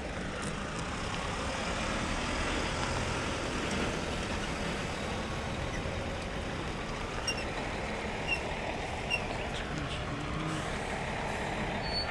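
Large truck running with a steady low engine rumble and a broad hiss that swells a few seconds in, with three short high chirps in the second half.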